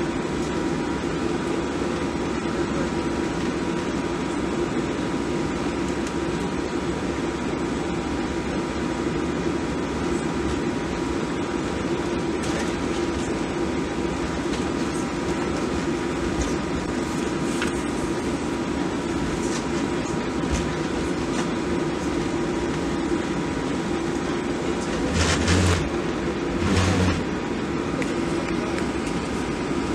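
Steady cabin noise inside a Boeing 737-700 airliner: a constant engine and air-system hum with a rushing hiss. Two brief knocks about 25 and 27 seconds in.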